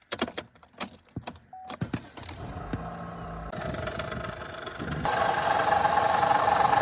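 Clicks and a jangle of keys. About two seconds in, a 2013 Chevy Cruze engine starts and idles, growing louder, with a knock-like noise that is present only at idle and goes away when the revs are raised; the noise was traced to a loose water pump.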